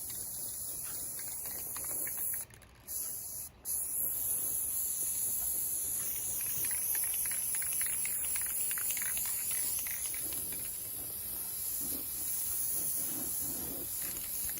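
Aerosol can of black spray paint spraying in a steady hiss, breaking off briefly twice near the start and then held on.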